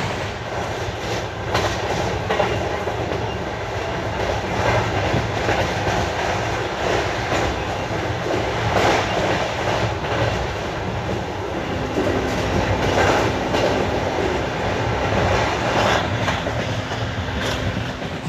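Passenger train running along the track, its wheels clacking over rail joints every second or few above a steady rumble. A faint steady hum joins about two thirds of the way through.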